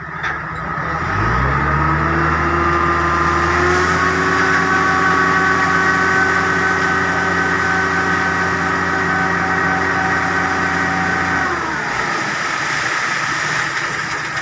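Heavy diesel engine revs up about a second in, holds steady high revs for about ten seconds, then drops back toward idle near the end.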